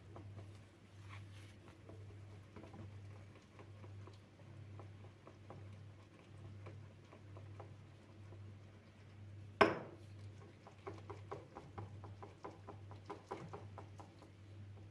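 Soft tapping and clicking of small objects being handled, with one sharp knock about ten seconds in followed by a run of quick light ticks, over a steady low hum.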